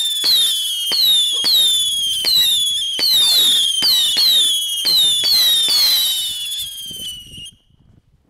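Whistling firework going off in rapid succession: each shot is a sharp crack followed by a whistle falling in pitch, about two a second, stopping suddenly near the end.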